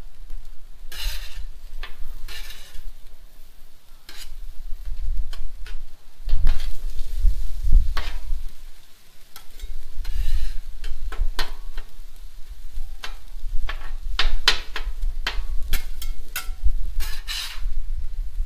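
Flat metal scraper scraping and clicking across the hot steel top of a Blackstone griddle, in repeated short strokes as diced onions and garlic are pushed around, with food sizzling on the griddle.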